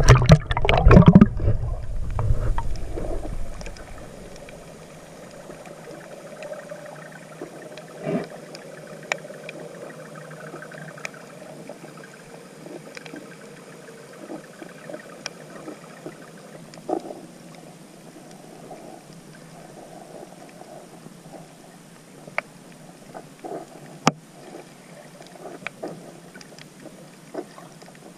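Water splashing and churning loudly for the first two or three seconds as the camera dips below the surface. Then comes the muffled sound of shallow seawater heard through an action camera's waterproof housing: a steady dull hiss with scattered sharp clicks and crackles.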